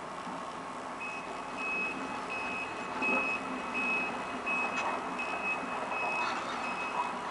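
Reversing alarm on heavy equipment beeping evenly, about three beeps every two seconds, starting about a second in. Under it is the steady running of heavy machinery, with a few clanks.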